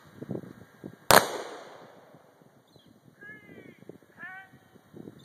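A single sharp crack about a second in, fading away with a long echo: a rifle volley fired by a funeral firing party. It is followed by a crow cawing three times.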